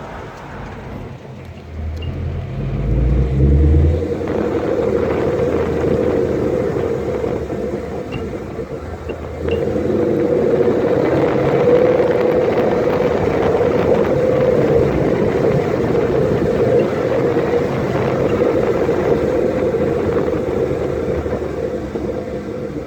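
Mustang GT S550's 5.0-litre V8 and drivetrain while driving: a deep rumble that swells two to four seconds in as the car pulls, then steady running with road noise.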